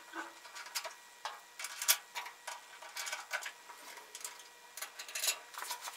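Ratcheting wrench clicking in short irregular runs as a bolt is run in and tightened.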